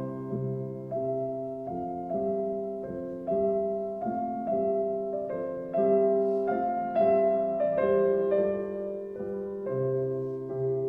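Slow piano music: notes and chords struck roughly once a second, each left to ring and fade.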